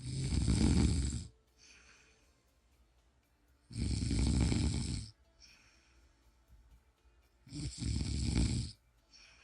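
A person snoring: three loud snores about 3.7 seconds apart, each lasting a little over a second, with a much fainter breath between them.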